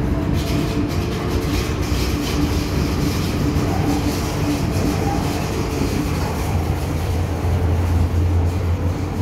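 Hong Kong MTR M-Train running, heard from inside the car: a steady rumble of wheels and running gear with a steady hum, light clicking over the first few seconds, and a deep hum that grows louder near the end.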